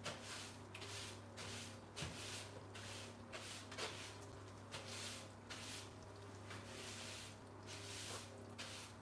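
Faint, irregular bubbling and hissing from a pot of snapper, vegetables and broth simmering on the stove, over a low steady hum.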